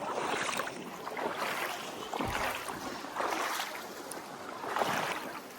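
Creek water splashing and rushing, the noise swelling every second or two, with some wind on the microphone.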